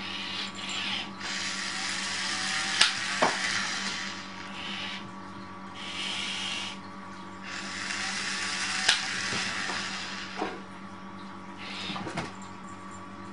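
A robot's small electric motors whirring in on-off spurts, each lasting from under a second to about three seconds, with a few sharp clicks in between.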